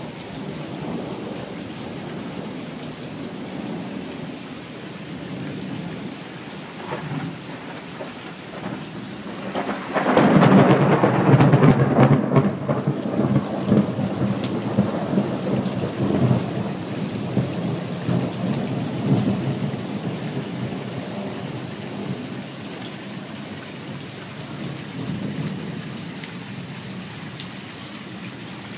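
Thunderstorm: steady rain with low rumbling thunder. About ten seconds in, a loud thunderclap breaks in suddenly and rumbles away over the next ten seconds or so, while the rain goes on.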